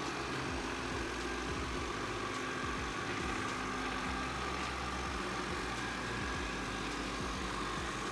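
Ecovacs Deebot N79W robot vacuum running with a steady whir while it homes in on its charging dock.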